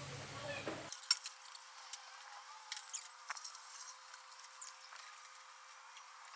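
Faint, scattered light clicks and clinks, several in each second, over a low hiss.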